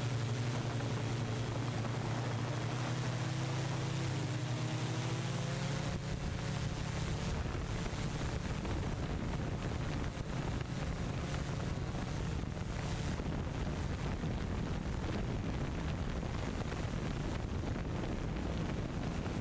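Multirotor propellers humming steadily, the pitch wavering a little. About six seconds in the hum gives way to mostly wind rushing over the microphone.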